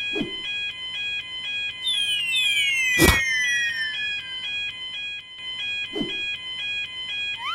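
Railroad crossing warning bell ringing steadily as quick alternating tones, the Japanese crossing 'kan-kan'. Two falling whistle-like glides sound over it from about two seconds in, with a sharp hit, the loudest sound, about three seconds in.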